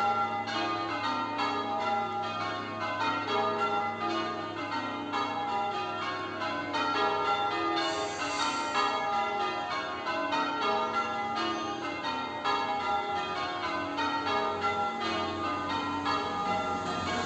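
Church tower bells being change-rung: the bells strike one after another in a steady, rapid, even rhythm, their tones overlapping and ringing on.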